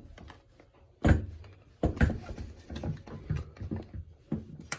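Irregular knocks and clatters from working the squirrel-cage blower wheel off the exhaust fan motor's shaft, the loudest about a second in.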